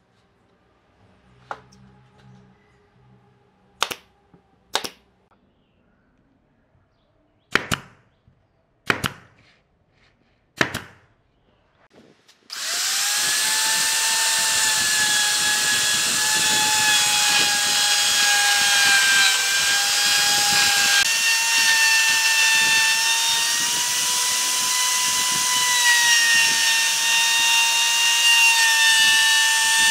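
A power tool starts about twelve seconds in and runs steadily with a high whine, its pitch shifting slightly partway through. Before it, several sharp knocks from pieces of wood being handled.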